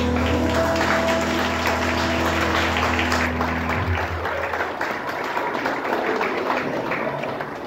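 Audience applauding in a hall over the last held notes of recorded music. The music ends about four seconds in and the clapping then thins out.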